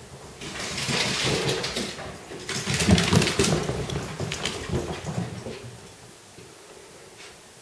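A Bengal cat and a Corgi scampering across a hardwood floor and rugs: paws and claws scrabbling with rug rustling from about half a second in, growing into a louder run of quick clicks and thumps around three seconds in, then dying away about six seconds in.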